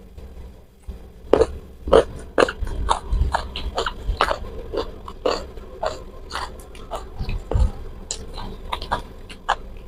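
A person chewing food close to the microphone: irregular crunches, wet mouth clicks and smacks, starting about a second in.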